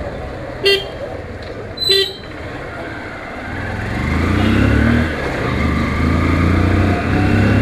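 Two short horn toots about a second apart over a motorcycle engine and wind rush. About halfway through, the engine gets louder and steadier as the bike accelerates.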